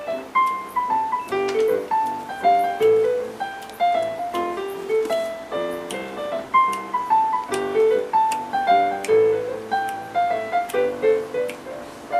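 Electronic keyboard played with a piano voice: a melody of single notes over low bass notes. The same phrase comes round again about halfway through.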